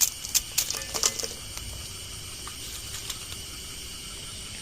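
Several quick metal clinks of a spoon against the cooking pot in the first second or so, as the noodles are broken up, over a steady high-pitched chorus of night insects.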